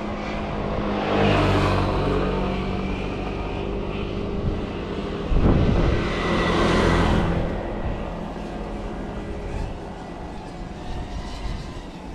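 Motors passing close by, swelling loud about a second in and again from about five and a half to seven seconds, then fading away.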